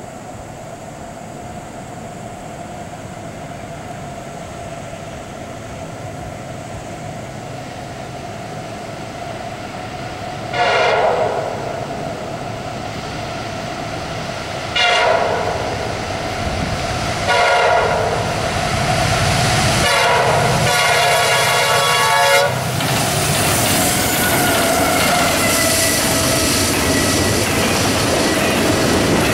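CSX diesel locomotives on a fast double-stack container train approach with a rising rumble and sound their multi-tone air horn in several blasts, the last one held longest. The locomotives then pass close by and the stack cars roll past with a loud steady rumble and wheel clatter.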